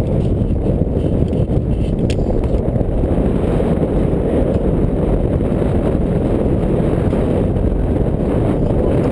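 Wind buffeting the body-worn camera's microphone high on a lattice tower, a steady low rumble, with a faint click of climbing hardware about two seconds in.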